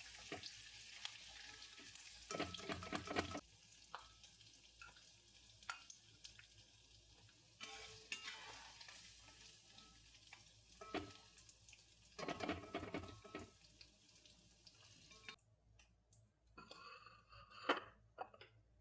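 Food frying in a pan and being stirred: a faint sizzle, with four short bouts of a utensil scraping against the pan.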